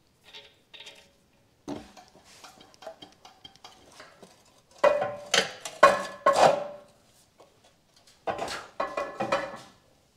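Stock stainless-steel exhaust pipes of a BMW E46 330ci clanking and scraping against each other and the jack cradle as they are pushed into place, in uneven bouts of metal clatter that ring briefly. The loudest clatter comes about halfway through and again near the end.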